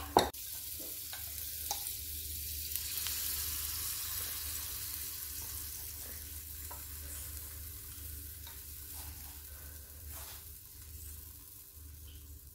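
Pancake batter sizzling in melted butter in a hot frying pan: a hiss that swells over the first few seconds and then slowly dies down, opening with a sharp knock. A steady low hum runs underneath.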